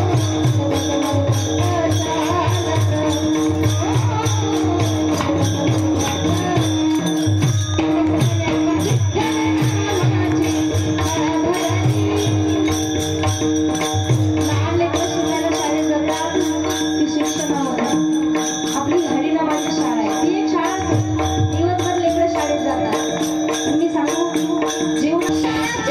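Devotional bhajan music with a mridang drum playing repeated low strokes and jingling percussion over a steady drone, with a bending melody line above.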